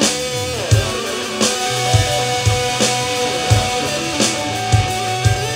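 Instrumental rock jam: guitar playing sustained notes that bend and slide up and down over a drum kit keeping a steady beat.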